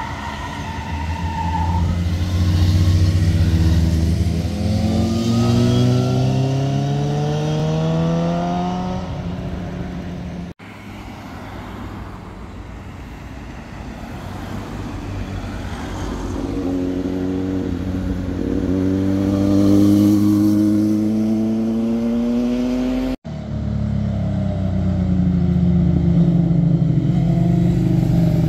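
Sport motorcycles accelerating past, the engine note climbing steadily in pitch. The sound drops out suddenly twice, and each time a new bike is heard; the last one runs at a lower, steadier note.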